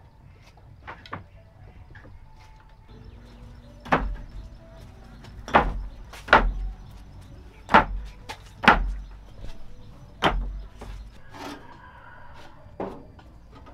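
Six hard knocks, one to two seconds apart, each with a dull thud underneath: building materials being handled and set down on a brick wall. A short rattle follows near the end.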